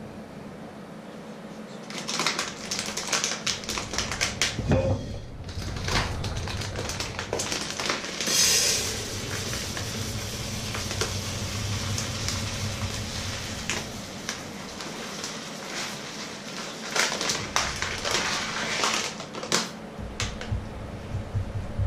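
A crinkly plastic bag rustling as dry grains are poured from it into a plastic bowl, heard as bursts of dense crackling and clicking. A low steady hum runs underneath.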